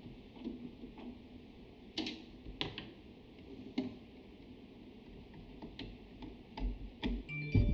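Scattered sharp clicks and light knocks of computer parts being handled and fitted into a PC case, with heavier knocks and a thump near the end.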